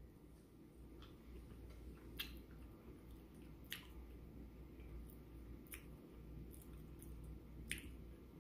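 Faint chewing with mouth closed, with four soft, sharp wet mouth clicks spaced about two seconds apart.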